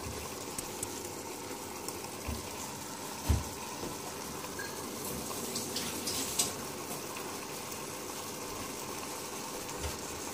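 Chicken pieces and sliced onions frying in oil and smen in a steel pot: a steady sizzle with a few faint crackles and a couple of soft low knocks.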